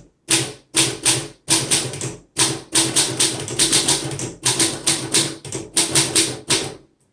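1935 Underwood Universal portable typewriter being typed on: the typebars strike the platen in an irregular run of sharp clacks, about three to four a second, stopping shortly before the end.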